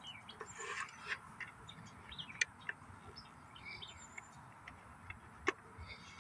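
Scattered bird chirps over faint outdoor background, with two sharp clicks about two and a half and five and a half seconds in as a plastic latched case is handled.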